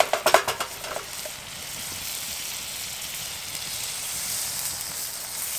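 Bread frying in butter in a pan over a small wood fire: steady sizzling, with a few sharp clicks in the first second.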